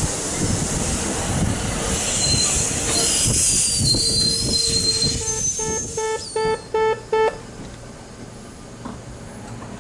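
A commuter train running through the station with its wheels squealing on the rails, high squeal tones gliding over the rumble. About five seconds in, a pitched beep sounds six times in quick succession, and then the train noise dies down.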